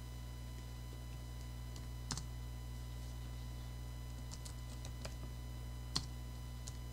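A few scattered clicks at a computer's keyboard and mouse, the loudest about six seconds in, over a steady electrical hum.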